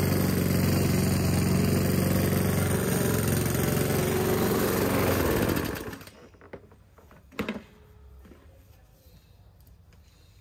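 Petrol engine of a Ferrex 20-inch self-propelled lawn mower running steadily, then shut off about five seconds in and running down to a stop within a second. A single short knock follows about two seconds later.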